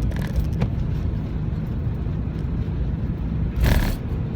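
Inside the cab of a small pickup truck driving in four-wheel drive on a snowy road: steady low engine and road rumble, with a brief louder rush of noise about three and a half seconds in.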